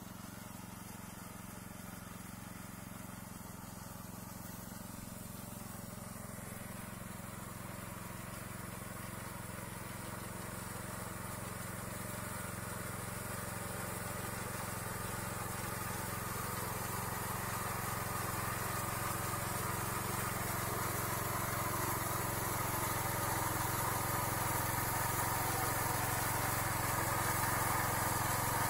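Small engine of a walk-behind paddy reaper running steadily as it cuts rice, growing gradually louder as it comes closer.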